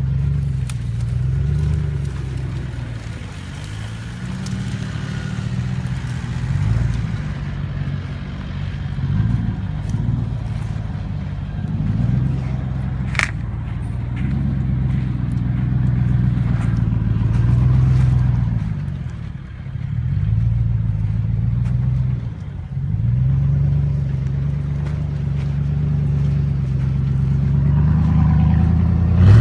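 Hummer H2's V8 engine running under load off-road, its pitch rising and falling with the throttle. There is one sharp click about thirteen seconds in.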